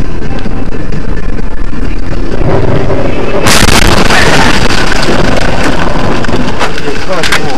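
A car crash heard from inside the car through the dashcam's microphone. Heavy road and vehicle rumble swells, then a sudden violent impact comes about three and a half seconds in, followed by continued loud crash noise with several sharp knocks.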